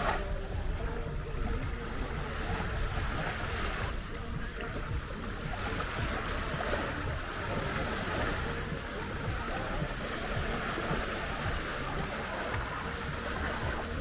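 Small Caspian Sea waves breaking and washing up on a sandy shore in a steady hiss that swells and falls, with wind rumbling on the microphone.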